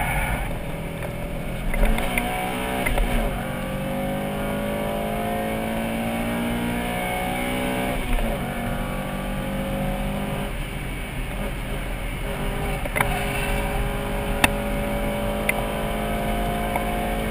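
Honda Accord Type-R's 2.2-litre H22A7 VTEC four-cylinder engine under hard acceleration, heard from inside the cabin. It rises in pitch through the gears, drops at a gear change about eight seconds in, then climbs again, with a couple of sharp clicks near the end.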